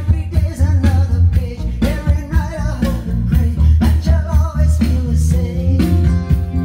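A song with singing, heavy bass and a steady drum beat, played loud through a Sanway SF 15 full-range PA loudspeaker in a speaker test.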